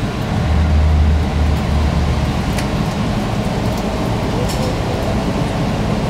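JR Hokkaido KiHa 183 series diesel railcar running along the line, heard from the passenger area just behind the cab: a steady rumble of diesel engine and wheels on rail. A deeper low hum swells for about a second and a half near the start.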